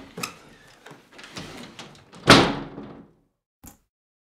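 A door slammed shut about two seconds in, after some shuffling and small knocks, with a short ringing decay. A faint single drip follows near the end.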